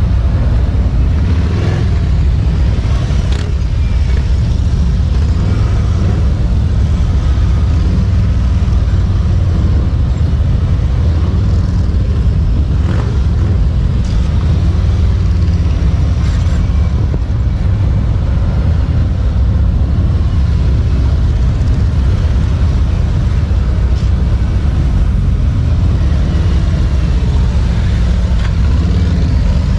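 Large touring motorcycles running at low speed as they weave through a cone course: a steady, loud, low engine rumble with no sharp events.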